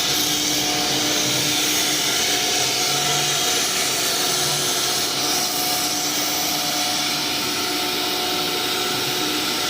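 Super Star 1325 CNC router running: a steady machine whine with a few fixed tones over a loud, even hiss of spindle and cutting noise.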